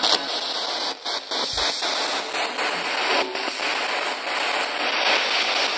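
Spirit box radio hissing with loud static, broken by frequent short clicks and dropouts as it scans through radio stations.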